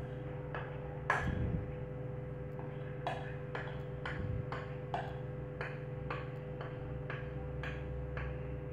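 A spatula scraping and tapping inside a stainless steel bowl as cake batter is scraped out, short strokes about twice a second, over a steady low hum.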